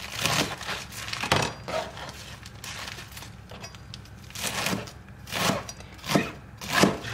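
Fresh spinach being picked over and cleaned by hand: leaves rustling and handled, in about half a dozen separate swishes.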